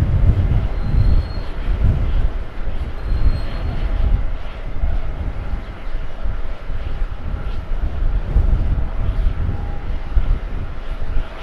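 Airbus A350-941 jet airliner on final approach, its Rolls-Royce Trent XWB turbofans heard as a loud low rumble that rises and falls unevenly, with a faint steady whine above it.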